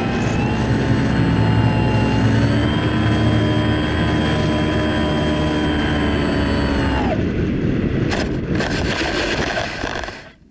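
Onboard sound of an FPV Phantom RC plane's electric motor and propeller running with a steady whine. About seven seconds in the motor is cut and its pitch drops away. Wind rush and a scraping rustle follow as the plane touches down on grass, and the sound cuts off near the end.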